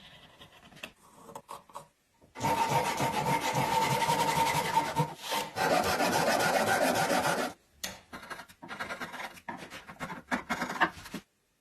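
A tool scraping on wood. A few faint ticks come first; about two seconds in, a continuous scraping sets in for about five seconds with a faint steady tone under it; then it breaks into short separate strokes that stop abruptly near the end.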